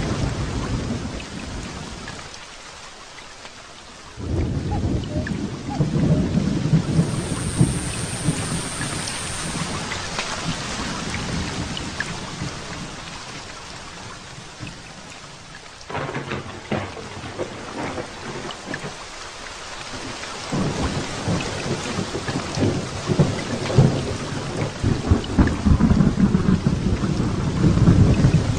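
Thunderstorm: rain falling steadily, with repeated rolls of low thunder. One rumble starts suddenly about four seconds in and another near the middle, and a longer, louder stretch of rumbling comes near the end.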